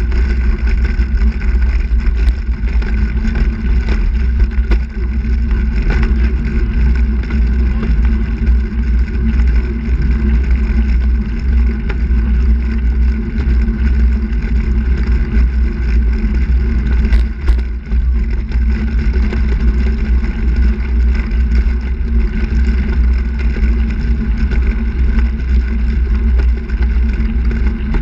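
Steady wind rumble on the microphone of a camera riding low on a moving handbike, mixed with tyre noise on the asphalt.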